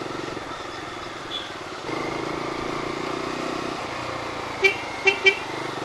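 Bajaj Dominar 250 motorcycle running steadily in town traffic, its engine note holding through the middle. Near the end a vehicle horn gives three short beeps.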